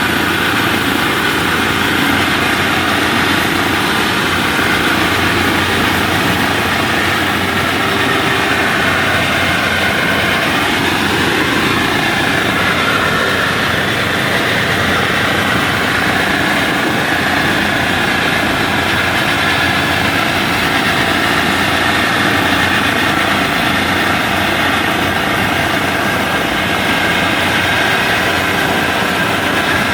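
Steady drone of a rice combine harvester's engine as the machine travels along a road, holding an even level throughout.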